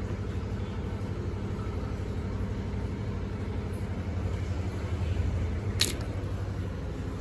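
A steady low electrical or motor hum, with one sharp click about six seconds in.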